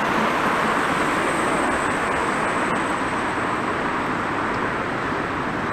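Road traffic: a steady, even noise of cars driving along a busy street.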